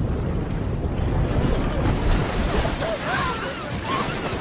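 Tsunami floodwater surging through a town street: a loud, continuous rushing of water that grows brighter about two seconds in, with people's wavering cries and shouts rising above it now and then.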